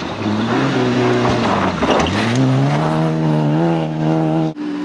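Rally car engine at high revs: its pitch drops briefly about two seconds in, then climbs steadily as the car accelerates, breaking off abruptly just before the end into a steadier engine note.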